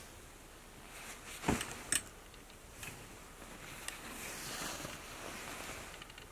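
Satin sukajan jackets on a rack rustling as they are pushed aside by hand, with two sharp clicks close together about a second and a half in.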